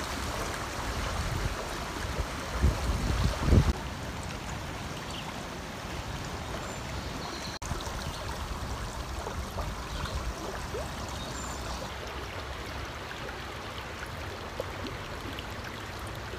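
Shallow creek water with a strong current rushing over stones and around driftwood, a steady bubbling and gurgling. A few louder low bumps come about three seconds in.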